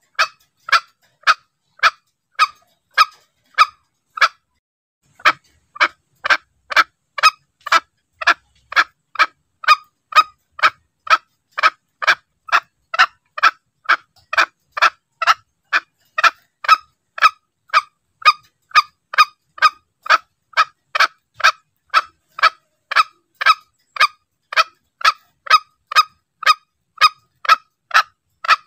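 Green junglefowl calls played as a hunting lure: short, sharp call notes repeated about twice a second, with one brief pause about four seconds in.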